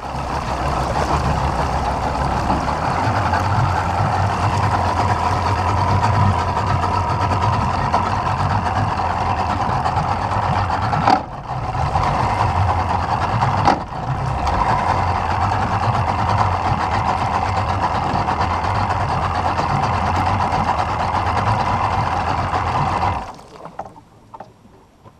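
A boat's outboard motor runs steadily, pushing the boat along, with a low pulsing rumble and two brief dips midway. It stops abruptly shortly before the end as the boat pulls up to a pole.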